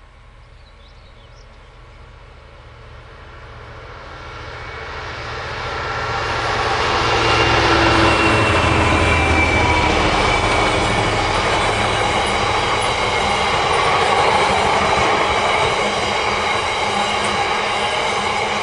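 Class 66 diesel freight locomotive approaching and passing, its sound building steadily to the loudest point about eight seconds in, then a long rake of freight wagons rolling steadily past, wheels rumbling on the rails with a faint high ringing.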